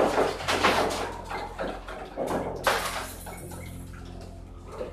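Furniture and household objects rattling and knocking in a room shaken by an earthquake, loudest in the first three seconds and then dying down to a low hum.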